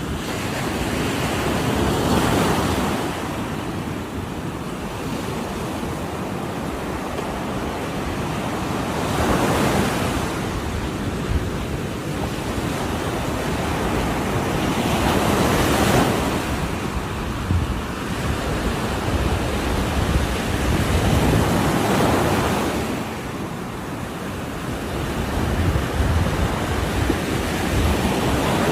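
Ocean waves breaking on a shore, the surf swelling into a crash and washing back about every six seconds, over a steady low rumble.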